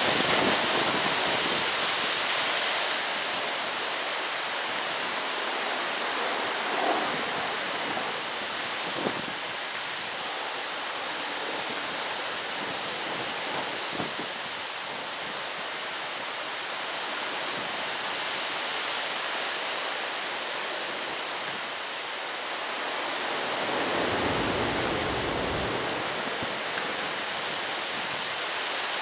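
Strong wind blowing steadily, with a heavier gust buffeting the microphone with a deep rumble about 24 seconds in, and a few faint knocks.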